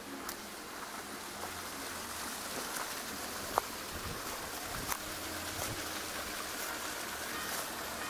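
Footsteps going down leaf-strewn timber trail steps, with a few sharp clicks, over a steady rushing noise.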